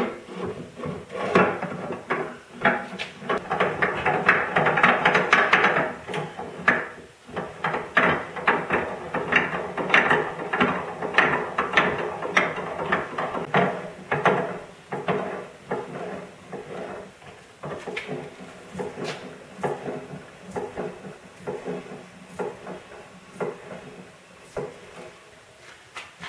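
Homemade steel bench vise being worked: the square-tube movable jaw sliding along its slide and the screw spun by its handle bar, giving a busy run of metal scrapes, rattles and clicks. The sounds are densest in the first half and thin out to sparser clicks as the jaws close near the end.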